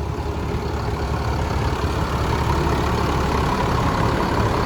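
Large tour bus engine idling steadily, a deep continuous rumble that grows gradually louder.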